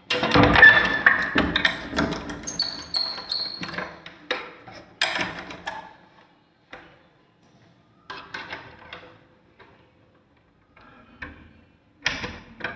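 A door's metal bolt and lock being fastened, with keys in hand. A loud clatter of knocks comes at the start, ringing metallic jingles follow, and a few quieter rattles and clicks come later.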